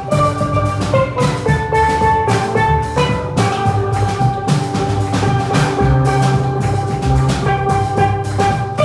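Live steelpan band music with drum kit, sustained ringing pan notes over a steady drum beat.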